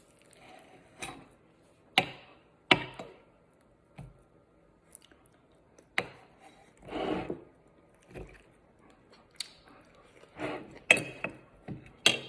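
Eating utensils clicking and scraping against dishware while picking at chicken: a handful of sharp clicks spread out over several seconds, with softer rubbing and scraping between them.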